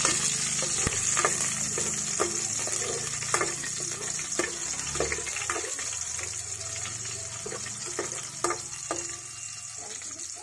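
Chopped garlic sizzling in hot cooking oil in a metal pot, a steady hiss, with a few sharp clicks from a spatula stirring against the pot.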